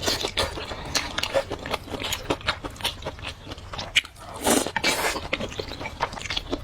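Close-miked mouth sounds of a person biting and chewing food: many short wet clicks and smacks, with a louder bite about four and a half seconds in.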